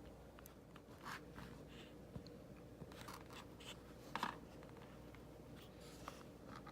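Faint scratching and scattered light clicks of a small screwdriver working the tiny screws of an iPhone during disassembly.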